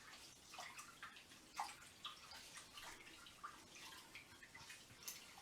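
Rice being washed by hand in a pan of water: soft, irregular swishing and small splashes as the grains are stirred and rinsed.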